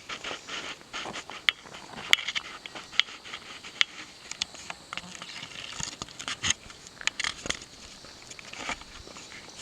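Footsteps on a rocky trail: irregular crunches, scuffs and clicks of shoes on stones and grit.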